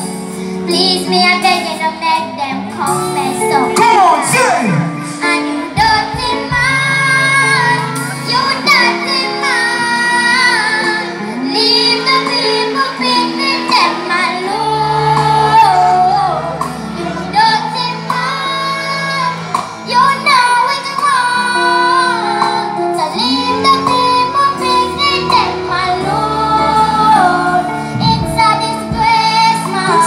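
A young girl singing live into a microphone, holding long notes, over instrumental accompaniment.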